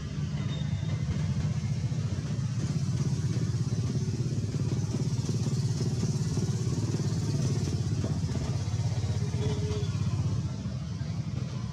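Steady low rumble with a fainter hiss above it.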